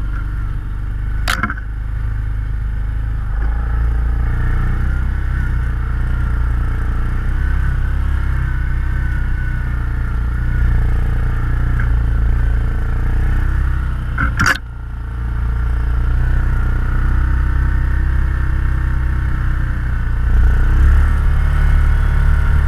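ATV engine running steadily along a rough trail, with two sharp knocks, one about a second in and one about fourteen seconds in. The engine gets louder near the end.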